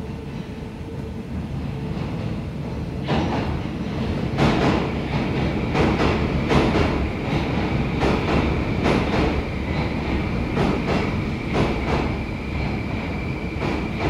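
Moscow metro 81-760/761 "Oka" train rolling slowly past in a tunnel. The rumble rises as it approaches, then from about three seconds in come repeated sharp clacks, often in pairs, as the wheels cross rail joints. From about five seconds in there is also a steady high whine.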